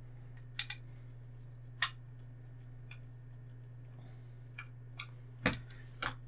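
Small screwdriver driving a tiny screw into a plastic model car seat: a few light, scattered clicks. Near the end come two louder knocks as the seat is laid down on the cutting mat.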